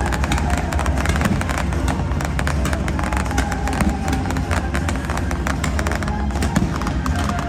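Fireworks going off in a dense, rapid run of cracks and bangs, over loud music from a pyromusical show's soundtrack.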